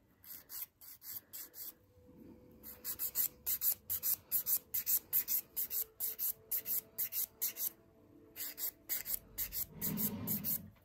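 Hand nail file rasping across the free edge of a fingernail in quick, even back-and-forth strokes, about four a second, with a short pause about two seconds in and another near eight seconds.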